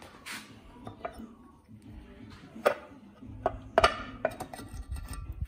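Metal clinks and knocks of parts being handled on the engine's timing cover, a handful of sharp knocks with the loudest cluster in the second half, over a low rumble of handling noise.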